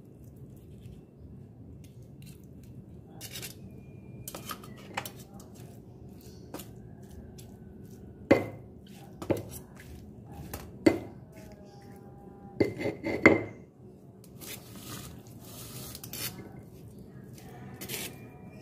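Stone pestle (ulekan) knocking and pressing against a stone mortar (cobek) as fried tofu is crushed into chili sambal, with light clicks of metal tongs and kitchen scissors. The sharpest knocks come in a cluster from about eight to thirteen seconds in.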